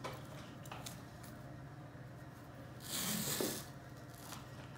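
Zonas adhesive tape pulled off its roll, a short ripping hiss about three seconds in, with a light click near the start.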